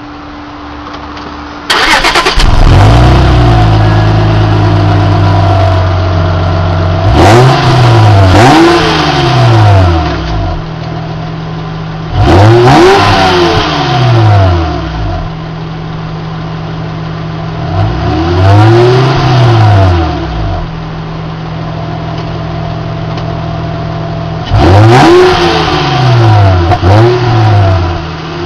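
Acura TL's 3.2-litre V6 exhaust: the engine starts about two seconds in and settles into idle, then it is revved in short free-revving bursts several times, each rise and fall in pitch followed by a return to idle.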